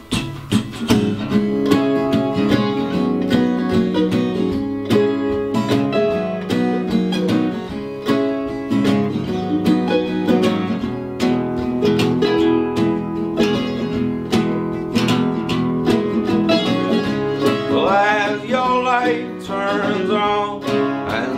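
Acoustic guitar playing a picked song intro, note after note; a singing voice comes in near the end.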